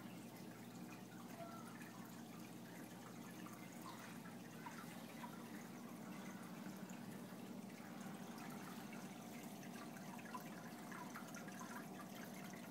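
Marineland aquarium filter running on a saltwater tank: water trickling and dripping over a low, steady pump hum.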